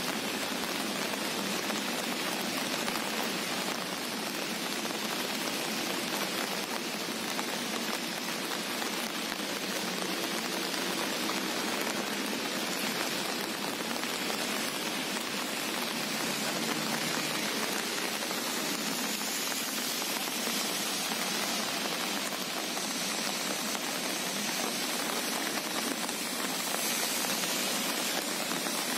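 Steady rain falling, an even hiss that holds without breaks or changes.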